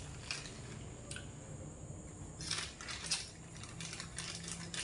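Crinkling and crackling of a wrapper being peeled open by hand, in scattered short bursts that come thickest about halfway through.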